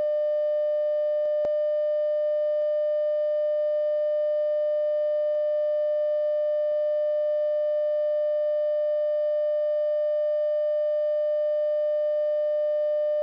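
A single steady electronic tone, mid-pitched with faint overtones, held unbroken at a constant level, like the long tone that closes a simulated emergency alert broadcast. A few faint clicks sit under it.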